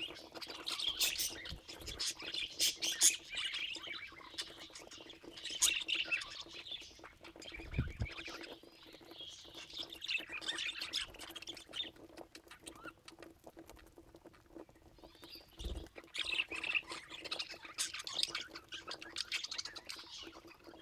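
Budgerigars chattering and squawking in bursts, with a quieter spell past the middle. A faint steady hum runs underneath.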